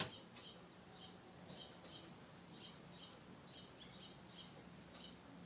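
A small bird chirping faintly and repeatedly, short high chirps a few each second, with one brief high whistle about two seconds in.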